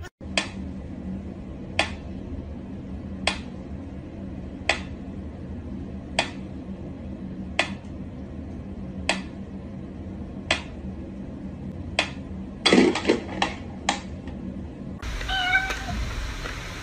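Mechanical pyramid metronome ticking slowly, one sharp tick about every second and a half. Near the end the ticks give way to a quick run of several clicks and knocks.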